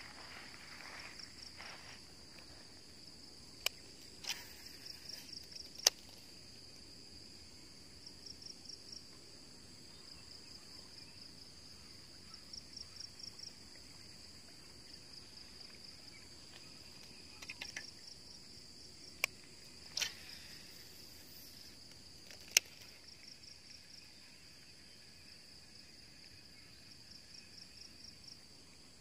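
Insects calling in grass: a steady high-pitched drone with short bursts of rapid chirping pulses every few seconds. A few sharp clicks stand out above it.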